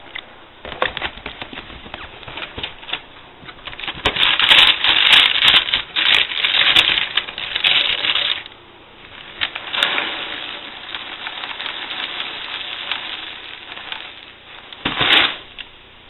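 Dry Lucky Charms cereal pieces poured and rattling onto a plate, a dense patter of small clicks that is heaviest a few seconds in and then dies down. There is one short, loud rustling noise near the end.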